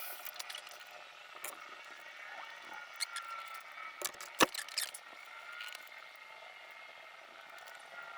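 Handling noises: scattered taps and clicks, with one sharper knock about halfway through, and a few faint short squeaks.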